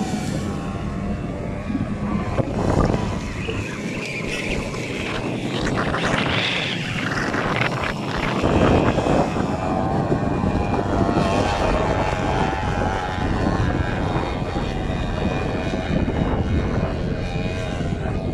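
ATV (quad bike) engine revving as it climbs a steep slope, its pitch wavering up and down with the throttle.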